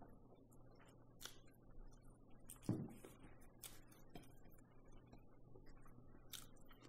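Faint eating sounds over near silence: scattered small mouth clicks and taps from chewing and handling burgers, with one slightly louder short sound a little before the middle.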